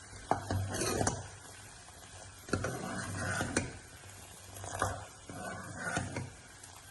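Light clicks and knocks of kitchen utensils working at a cooking pot, in three short bouts about two seconds apart, over a low steady hum.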